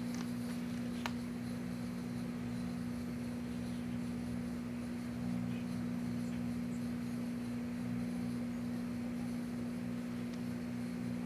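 Microwave oven running with a steady electrical hum, and one sharp tick about a second in.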